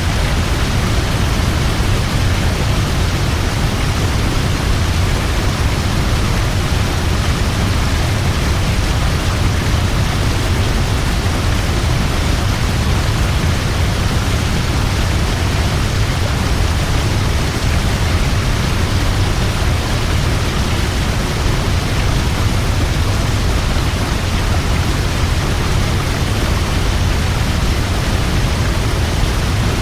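Large waterfall: a steady, dense rush of falling water with a deep rumble underneath.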